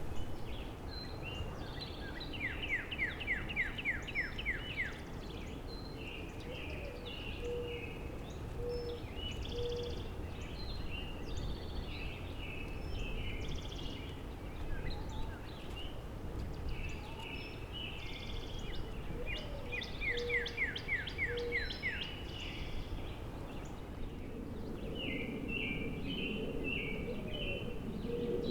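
Songbirds singing in spring woods: assorted chirps and phrases, with a rapid trill of quick falling notes twice, and a faint series of short low notes in the background. A low rumble of wind runs underneath.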